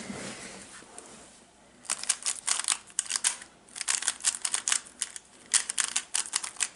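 Rubik's cube layers being turned quickly by hand, giving runs of rapid plastic clicks. The clicking starts about two seconds in and pauses briefly twice.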